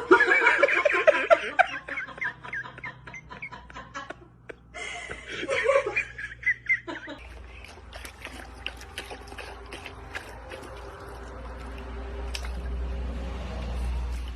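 A person laughing in quick pulses for the first few seconds, then again briefly around six seconds in. After that, a low rumble slowly grows louder, with scattered clicks over it.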